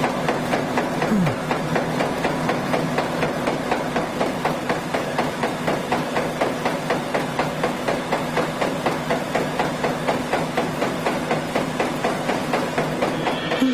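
Rapid, evenly spaced knocking, about four strokes a second, over a steady low hum.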